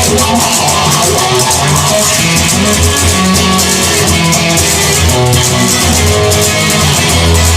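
Instrumental rock music: guitar over a bass line and drum kit, with no vocals.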